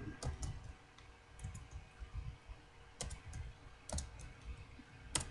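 Computer keyboard keystrokes as a word is typed: a few scattered clicks in small groups with pauses between them, the sharpest one near the end.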